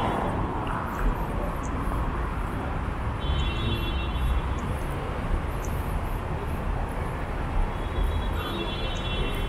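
City street ambience: a steady rumble of road traffic, with a high thin tone heard briefly twice.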